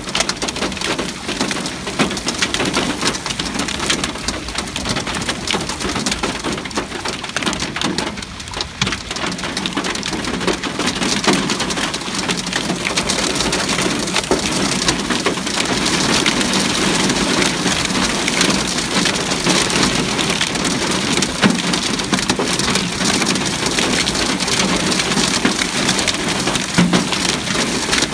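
Hail and heavy rain pelting standing water and wet ground: a dense, steady hiss of rain packed with sharp clicks of hailstones striking, a little louder in the second half.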